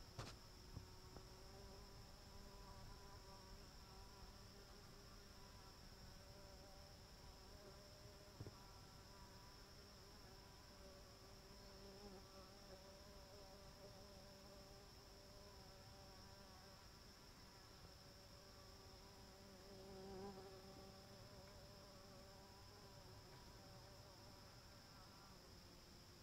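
Bumblebees buzzing faintly inside their nest box: a low, wavering hum that swells briefly twice, loudest about twenty seconds in.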